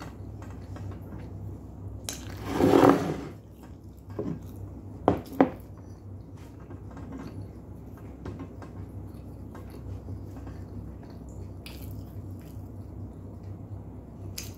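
Tableware handled on a wooden table: a rough scrape lasting about a second, starting about two seconds in, then two sharp knocks in quick succession. After that comes a plastic spoon stirring a drink in a glass jar, with faint scattered clinks over a steady low hum.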